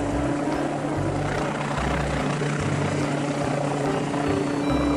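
A light helicopter hovering close by: steady rotor and engine noise with a constant hum.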